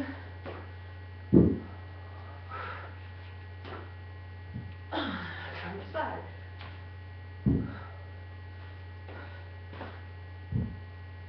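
Steady low electrical mains hum, with a few dull thumps about every three seconds, the first the loudest, as side lunges with dumbbells land on a concrete floor.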